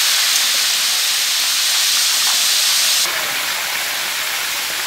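Whole fish deep-frying in hot oil in a wok: a loud, steady sizzle. It drops abruptly in level about three seconds in.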